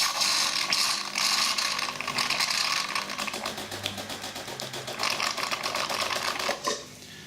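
DeLonghi Magnifica bean-to-cup coffee machine running a brew cycle: a fast, dense mechanical rattling and clicking that stops near the end. The machine has a newly fitted water pump but delivers only plain water, not coffee.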